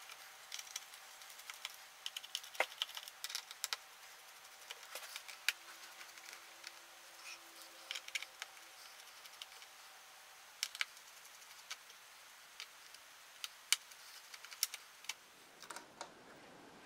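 Faint, scattered small clicks and taps of a small Phillips screwdriver working the tiny screws out of a laptop's bottom cover and the screws being set down one by one on a hard surface.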